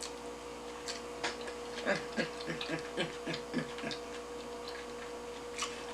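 A woman chewing sushi with wet mouth clicks and smacks. From about two seconds in she gives a quick run of short falling 'mm' hums of enjoyment, about three a second. A faint steady electrical hum runs underneath.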